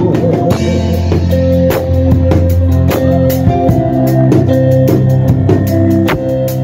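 Instrumental interlude of a gospel worship song: band music with guitar, sustained bass notes and a steady drum-kit beat, with no singing.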